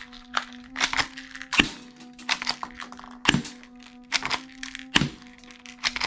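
Toy guns being fired and worked: a rapid, irregular series of sharp clicks and cracks, with three heavier pops spaced about a second and a half apart, over a steady low hum.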